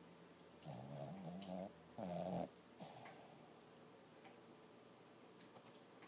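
Six-month-old Lhasa Apso puppy snoring and vocalising in its sleep while dreaming. A pitched, wavering sound lasting about a second comes first, then a shorter, louder one, then a faint third.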